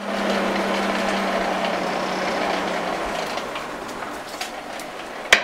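Forge air blower running with a steady rush and a low hum; the hum stops about three seconds in and the rush fades away. A sharp hammer blow on metal comes near the end.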